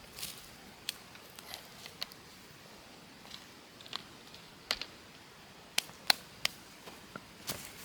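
About ten short, sharp clicks and snaps at irregular intervals, the loudest a pair around six seconds in.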